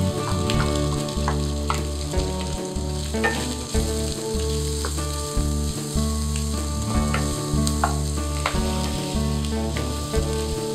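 Diced chicken and chopped onion sizzling in a non-stick wok as they are stir-fried, with a wooden spatula scraping and knocking against the pan now and then. Background music runs underneath.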